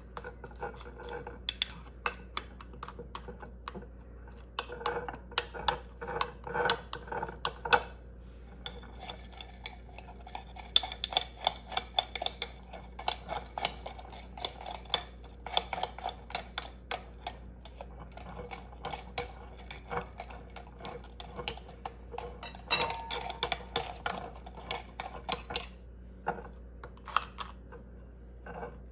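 Metal spoon clinking and scraping against the rims and insides of glass mason jars while whipped coffee is spooned onto milk, in irregular runs of quick light clicks and scrapes with short pauses.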